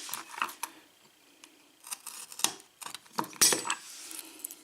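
Small metal clinks and clicks with a few short clattering handling noises as a padlock and its key are handled, the loudest about three and a half seconds in.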